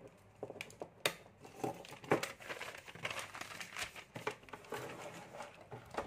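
A sheet of paper rustling and crinkling as it is handled and laid flat, with small irregular clicks and knocks.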